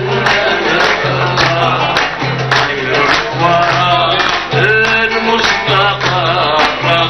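Live Algerian music: a plucked bowl-backed lute with accompaniment, and a man's voice singing over it.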